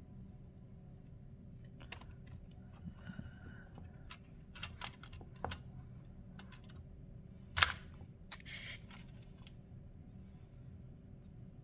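Ruler and pencil being handled on a pine board while marking out measurements: scattered light clicks and taps, with one sharper knock about seven and a half seconds in, followed by a short scratch.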